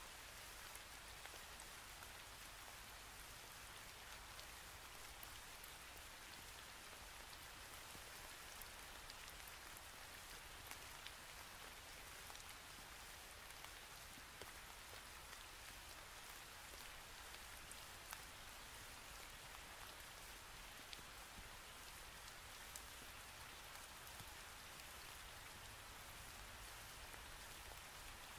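Faint crackle and soft ticks of a sheet of origami paper being folded and pressed flat by hand, over a steady hiss.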